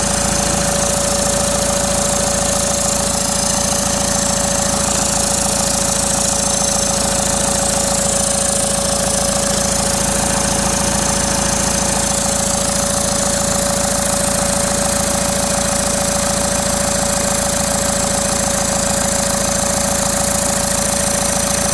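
Common-rail TDI diesel engine running steadily at idle, with a steady whine over the engine note; the engine's turbocharger has failed.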